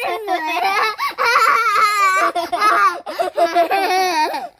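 Small children laughing hard in high-pitched bursts, one after another with brief breaths between.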